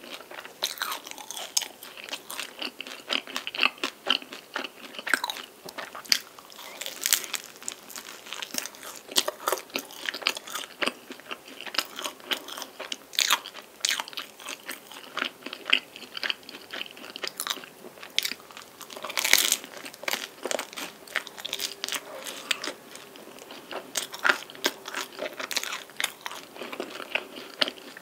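Close-miked biting and chewing of a cream-filled, chocolate-coated pastry: irregular crisp crunches with softer chewing between. One bite about two-thirds of the way through is the loudest.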